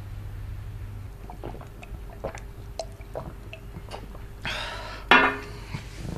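Light clicks and taps of tableware, then a sip from a mug and a sharp knock as the mug is set down on the table about five seconds in.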